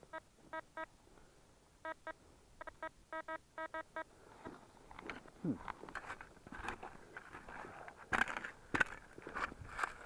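Metal detector, likely a Tesoro, giving a quick run of short, pitched beeps over a target, about a dozen in the first four seconds. After that come irregular scrapes and knocks in gravel and dirt, as of digging.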